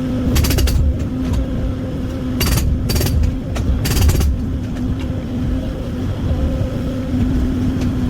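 Excavator diesel engine running at a steady pitch. Four short, harsh bursts of noise cut in during the first half.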